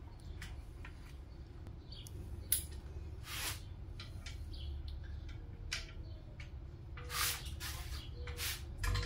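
Scattered short metal clinks and scrapes from tools and engine parts being handled, over a steady low hum.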